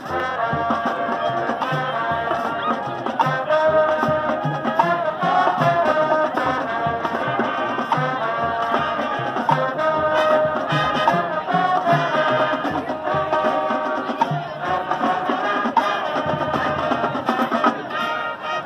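High school marching band playing, brass and woodwinds holding chords over a steady drum beat; the music comes in loudly right at the start.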